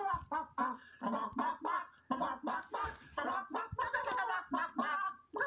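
Rapid chicken-like clucking from a cartoon voice, a quick run of short pitched syllables, about four or five a second, played from a TV.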